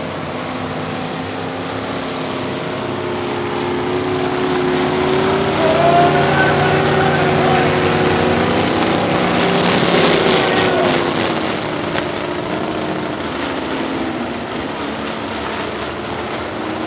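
Several demolition pickup trucks' engines running on a dirt track, the pitch rising and falling as they rev, louder for a stretch around the middle.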